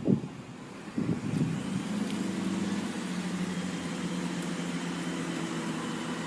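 Class 166 diesel multiple unit's engines running. Two short knocks come near the start, then the engine note rises about a second in and settles into a steady hum.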